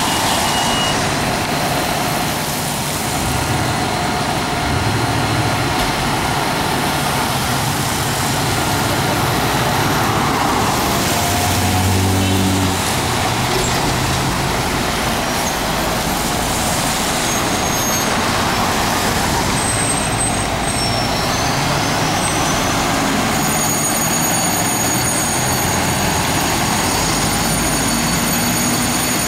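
Diesel engine of a Seagrave fire engine running as the rig pulls out and drives off, amid steady city street traffic.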